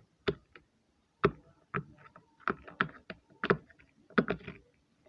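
Hard-shell pop-it fidget's bubbles being pressed one after another on the side called the bad side, giving a string of sharp, irregular pops.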